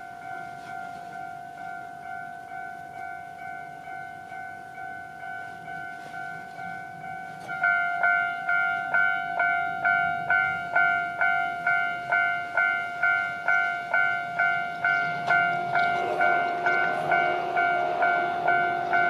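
Japanese level-crossing warning bell ringing in an even two-tone clang, about two strokes a second. It grows much louder about seven and a half seconds in. Near the end the running noise of an approaching Shizuoka Railway A3000-series electric train joins it.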